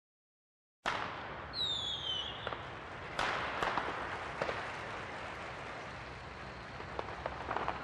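Fireworks starting about a second in: a whistle falling in pitch, then scattered bangs and crackles of bursts over a steady hiss.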